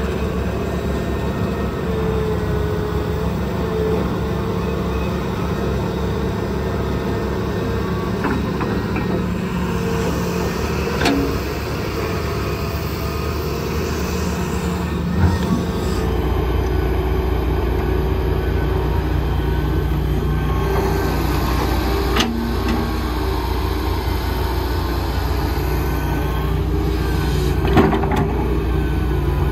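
Excavator's diesel engine running steadily while working, with a few sharp knocks and clanks. The engine note grows deeper and louder about halfway through.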